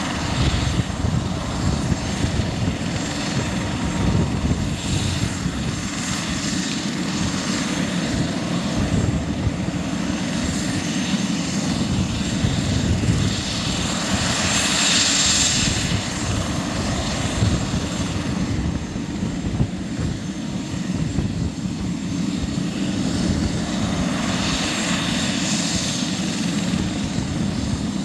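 Airbus H145 helicopter's twin turboshaft engines running on the ground: a steady rush with a faint high turbine whine, swelling briefly about halfway through.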